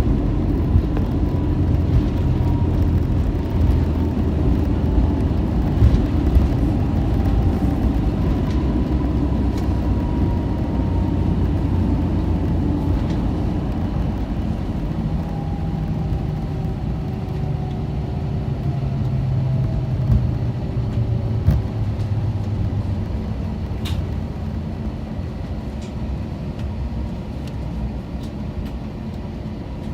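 Airbus A321-231 cabin noise as the jet slows on the runway: a heavy rumble with its IAE V2500 engines winding down, their whine falling slowly in pitch while the whole sound fades.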